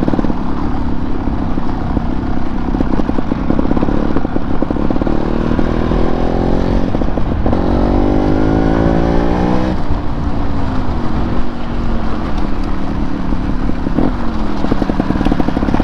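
Off-road motorcycle engine under way on a dirt track. The revs climb through the middle, drop sharply about ten seconds in, and climb again near the end, over steady wind and road noise.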